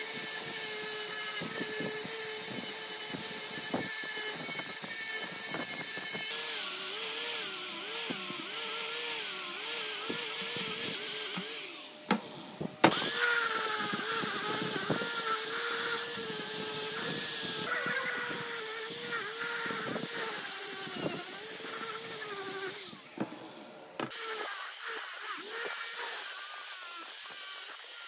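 Small angle grinder with a wire wheel brushing rust off cast-metal electric motor covers: a steady whine with a hissing scrub, its pitch dipping and recovering as the wheel is pressed into the metal. It breaks off briefly twice, a little before halfway and again near the end.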